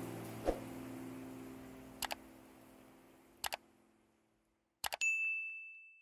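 Background music fading out under a like-and-subscribe animation sound effect: a few sharp mouse clicks, mostly in pairs about a second and a half apart, then a bright notification-bell ding about five seconds in that rings on as it fades.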